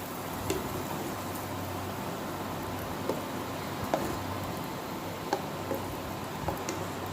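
Boondi, drops of gram-flour batter, frying in hot oil in a kadai with a steady sizzle. A few sharp metal clicks come from a slotted strainer knocking against the pan.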